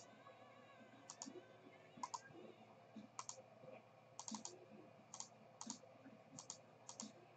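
Faint, scattered clicking at a computer as a list is copied and pasted into a spreadsheet, about a dozen short clicks, many in quick pairs, over a quiet room background.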